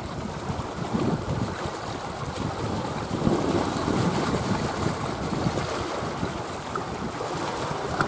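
Wind gusting on the microphone over small choppy sea waves lapping, an uneven rumbling rush that swells and fades.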